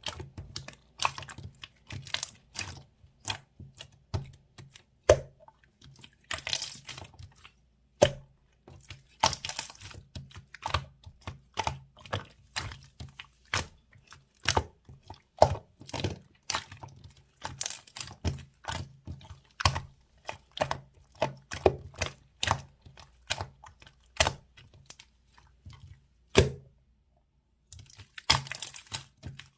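Slime being squished and poked by hand: a string of sharp wet clicks and pops, one or two a second, with a few longer crackling stretches.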